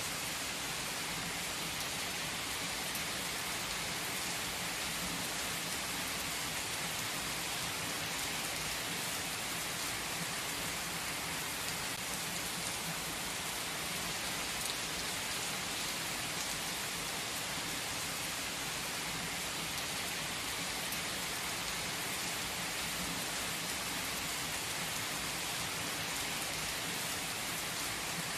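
Heavy rain pouring onto wet asphalt: a dense, steady hiss of drops splashing on the paved surface, with no let-up.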